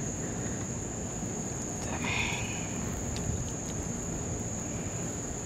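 Night insect chorus, a continuous high-pitched drone, under low rumbling handling noise from the hands and landing net close to the microphone.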